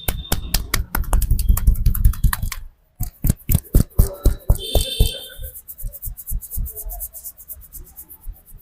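Rapid, rhythmic slapping and tapping of a barber's hands in a head and shoulder massage, several strikes a second. It stops briefly about three seconds in, comes back louder, then grows fainter over the last few seconds.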